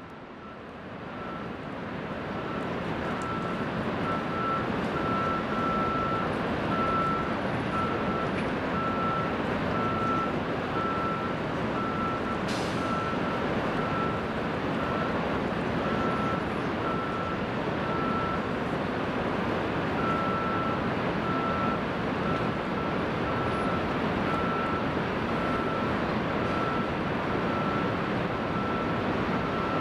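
A heavy vehicle's reversing alarm beeping at about one beep a second over steady background noise, pausing for a couple of seconds past the middle.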